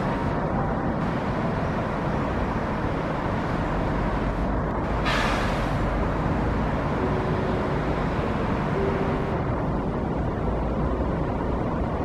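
Steady distant road traffic noise, a low rumble under a hiss, with a short hiss about five seconds in.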